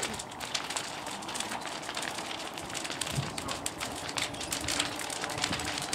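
Thatched roundhouse burning: the fire crackles with many rapid, irregular sharp pops over a steady noise of the flames.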